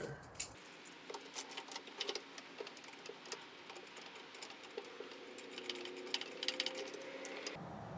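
Faint, rapid clicking and tapping from small parts and tools being handled at a workbench.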